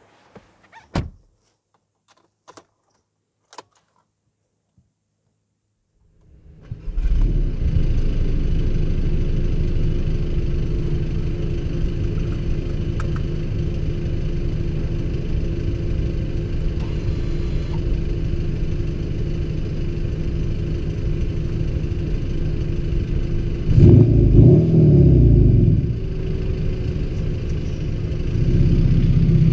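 A few light clicks, then a VW Golf 7 GTD's 2.0-litre four-cylinder turbodiesel starts about seven seconds in and idles steadily. It is blipped once near the end, the pitch rising and falling, then settles into a slightly louder run.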